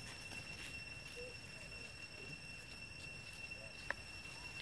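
Faint forest ambience with a steady high-pitched insect drone, and a single sharp click about four seconds in.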